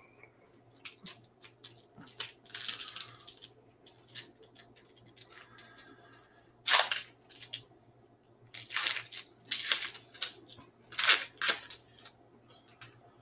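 Foil wrapper of a trading-card pack being torn open and crinkled in the hands, in a string of short crackles.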